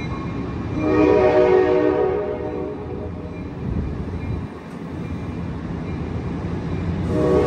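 Amtrak San Joaquin passenger train departing, its horn sounding a long chord about a second in and again near the end, over the steady rumble of passenger cars rolling past.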